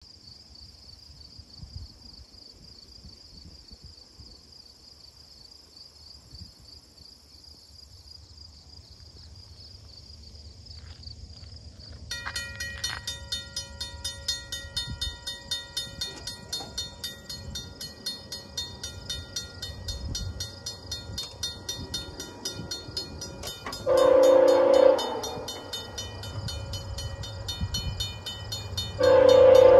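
A level-crossing signal bell starts ringing about twelve seconds in and keeps up a rapid, steady ding as the crossing warns of an approaching train. Near the end, the oncoming VIA Rail P42DC diesel locomotive sounds its horn for the crossing: a short blast, then a louder one starting just before the end.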